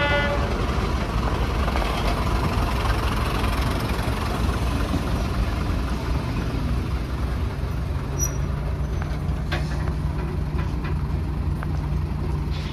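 Class 122 diesel railcar's underfloor diesel engines idling while it stands at the platform: a steady low hum, with a few faint clicks in the second half.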